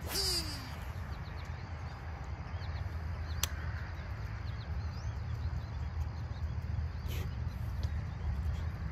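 Outdoor pond ambience: a steady low rumble with faint bird chirps scattered through. A brief swish comes right at the start, and a single sharp click about three and a half seconds in.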